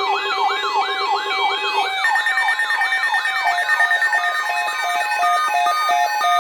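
Layered electronic siren tones: a repeating rising whoop, about three a second, over steady tones, with a high-low alternating two-note tone coming in about halfway through.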